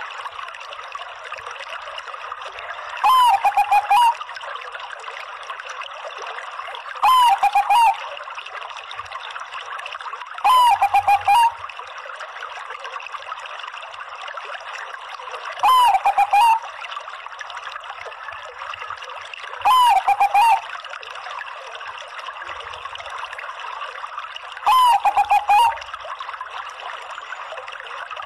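Zebra dove (Bangkok perkutut) cooing its song six times, every four to five seconds: each phrase a short hooked note followed by a quick rippling run of lower coos. A steady hiss lies under it.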